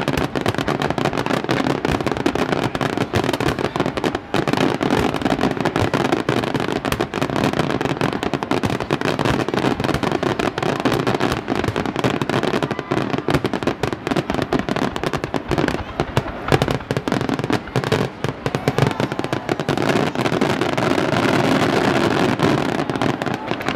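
Fireworks display: aerial shells bursting in a dense, unbroken barrage of bangs and crackling.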